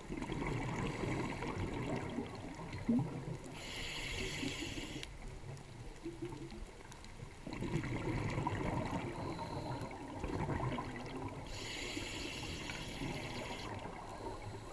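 Scuba regulator breathing, heard underwater through the camera: a low rush of exhaled bubbles lasting a few seconds, then a short high hiss of inhalation through the demand valve. The cycle comes twice.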